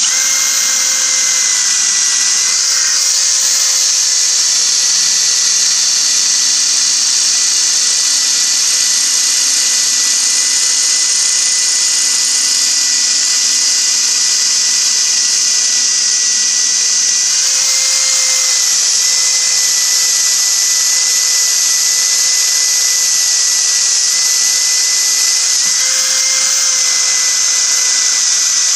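Cordless drill running steadily under load, drilling a small pilot hole into the steel bearing locking collar on a Massey Ferguson 135 rear axle shaft, so the welded collar can be split. Its whine shifts slightly in speed twice in the second half.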